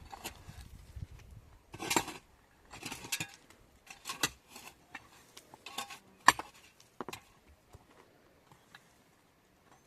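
Irregular clinks and knocks of small hard objects being handled, about eight separate strikes, the sharpest about six seconds in, thinning out near the end.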